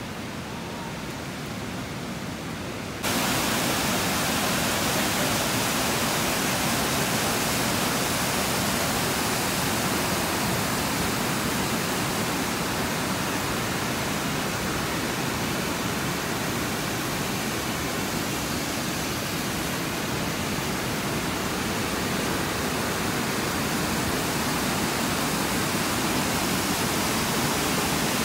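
Steady rush of water from the river Tambre, a dense hiss with no other sound in it, which jumps abruptly louder about three seconds in.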